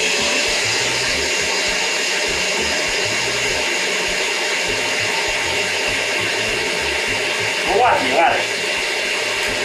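Electric mixer running steadily, beating eggs with sugar into a batter. A short wavering sound rises over it about eight seconds in.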